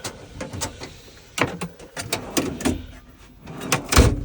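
A run of sharp clicks, knocks and rattles from tool cases and storage compartments being handled and opened, ending with a heavier thud about four seconds in.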